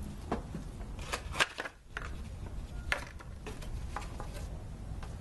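Plastic clicks and knocks from a 2005 Ford Taurus headlamp assembly being handled and fitted into its opening: about half a dozen short sharp taps, scattered irregularly.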